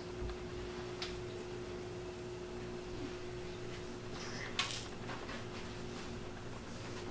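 Room tone with a steady hum, a faint click about a second in and a brief scuff about four and a half seconds in.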